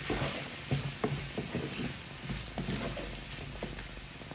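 Wooden spatula stirring kidney beans, onion and tomato in a frying pan: irregular soft knocks and scrapes over a steady sizzle. The stirring stops near the end, leaving the sizzle.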